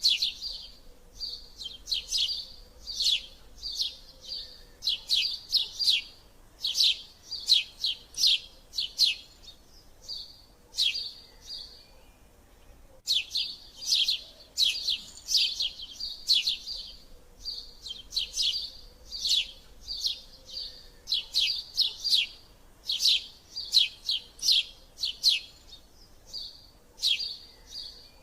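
Eurasian tree sparrows chirping in fast, excited runs: sharp, high chirps several a second, in the chatter of sparrows squabbling, with a short pause a little under halfway through.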